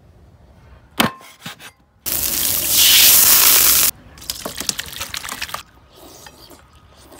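A run of short cooking clips: a sharp crack about a second in, then a loud steady hiss for about two seconds. After that, a saucy chicken-feet and sweet potato noodle stew is poured from a wok into a stainless steel pot, splashing and dripping. Fainter eating sounds follow near the end.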